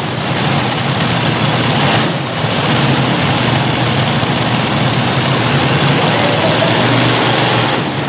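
Multi-V8-engine modified pulling tractor idling, a loud steady rumble from its engines running together, with a brief lull about two seconds in.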